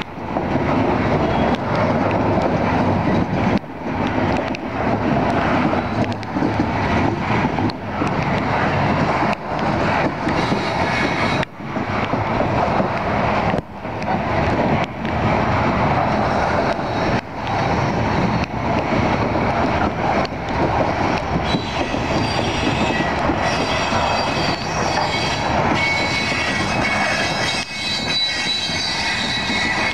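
Mostly empty CSX coal hopper cars rolling past close by: a steady rumble and clatter of wheels on rail, briefly dipping here and there. About two-thirds of the way through, high thin wheel squeal joins in and keeps on.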